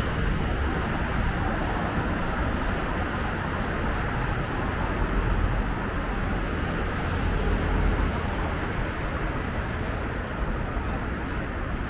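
Steady road traffic noise, a continuous rush of passing cars and tyres that swells a little midway.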